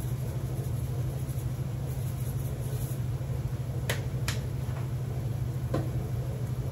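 A steady low hum runs throughout, with two sharp clicks about four seconds in and a fainter one near six seconds, as spice jars are handled over the stove.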